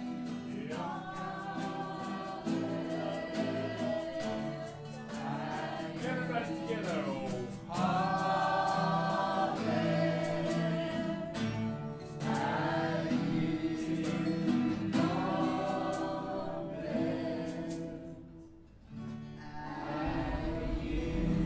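Background music: a choir singing in long held chords, with a short dip in loudness near the end.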